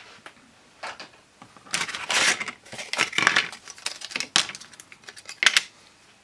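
Thin laser-cut MDF parts being handled and shuffled against each other: irregular wooden clacks and scrapes, with a longer scraping rustle about two seconds in and sharp clacks near the middle and end.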